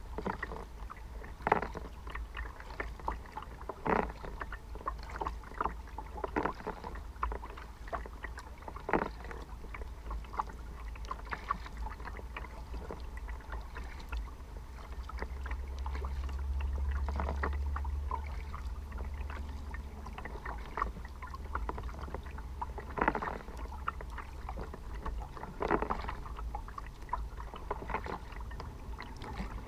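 Kayak paddle strokes dipping and splashing in calm river water at an uneven pace, a sharp splash every second or few. Underneath is a steady low rumble that swells for a few seconds about halfway through.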